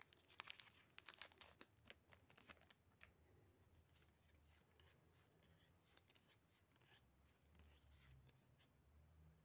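Soft crackling and tearing of a foil Pokémon booster-pack wrapper for about the first three seconds, then faint sliding and ticking of trading cards being flipped through one by one.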